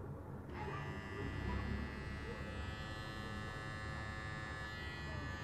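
Philips BT1212/15 battery beard trimmer switched on about half a second in, its motor and blades running with a steady whine.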